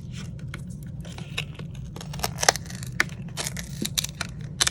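Plastic phone back cover being peeled off its frame by hand, giving irregular clicks and crackles as the adhesive lets go and the plastic flexes, over a steady low hum.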